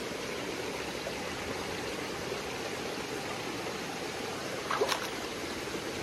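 Shallow stream water running steadily over pebbles and stones, an even rushing trickle. A brief, sharper sound rises above it about five seconds in.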